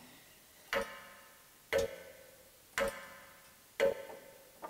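A clock ticking: one sharp metallic tick about every second, each with a short ringing tail.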